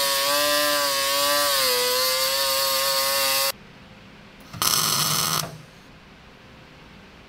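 Angle grinder cutting steel plate with a steady high whine, its pitch dropping slightly as the disc bites, then stopping abruptly about three and a half seconds in. About a second later comes a brief burst of welding crackle lasting under a second.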